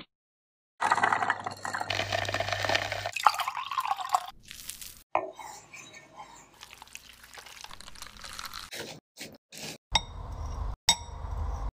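Short cooking sounds broken by abrupt cuts: crunching and clinking as a pomegranate and its seeds are handled, and liquid dripping and sloshing. Near the end comes a knife cutting through set pomegranate jelly, with sharp clicks.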